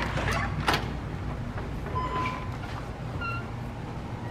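A front door's handle and latch clicking twice as the door is opened, then a steady low outdoor rumble with two brief high-pitched chirps near the middle.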